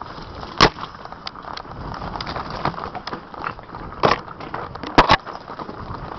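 Downhill mountain bike rattling down a rough dirt trail, with a constant rough rolling noise from the tyres over dirt and rocks. Sharp knocks from the bike hitting bumps come about half a second in, around four seconds, and twice in quick succession about a second later.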